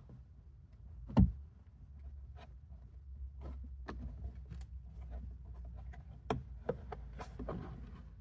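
Plastic interior A-pillar trim being handled and fitted in a pickup's cab: one sharp knock about a second in, then scattered lighter clicks and taps, over a low steady hum.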